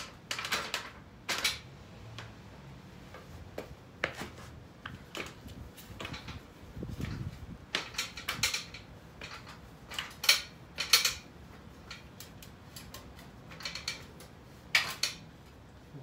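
Irregular metallic clanks and taps from an aluminium ladder as someone climbs it, shoes and hands knocking on the rungs and rails, with a dull thud about halfway and a few sharper knocks after it.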